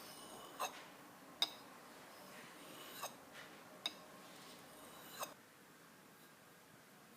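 Five light, sharp clinks spread over about five seconds, each with a brief metallic ring, over faint room hiss.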